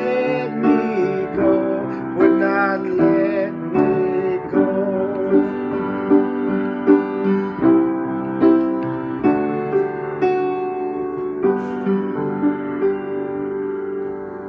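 Piano played by hand, a slow passage of chords struck about once every second, ending on a last chord that is held and dies away.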